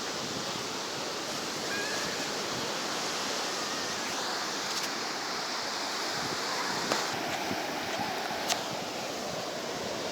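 Sea surf washing onto the shore, a steady rush of waves, with two short clicks in the second half.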